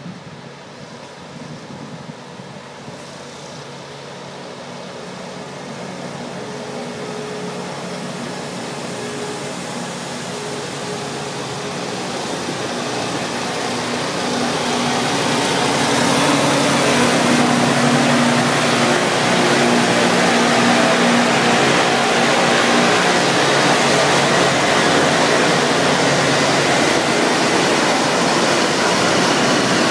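Rail-grinding train approaching and passing: a diesel engine hum under a harsh, even grinding noise from its grinding stones working the rails. It grows steadily louder over the first fifteen seconds or so, then stays loud.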